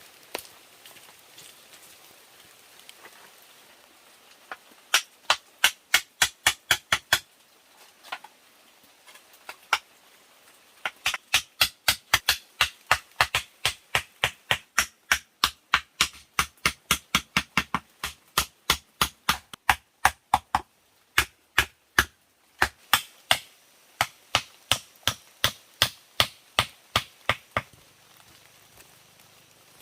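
A hand tool striking wood in quick runs of sharp knocks, about four a second, with short pauses between runs.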